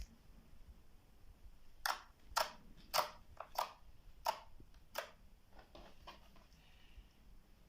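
Clear slime being squished and kneaded by hand, making a run of about seven short, sticky popping crackles, roughly two a second, from about two seconds in until about five seconds in, then fainter squishing.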